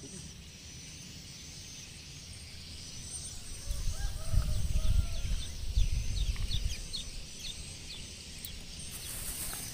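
Birds calling in a run of short, high chirps, with one lower wavering call in the middle. A low rumble on the microphone, loudest from a few seconds in until about two-thirds of the way through, sits under the calls.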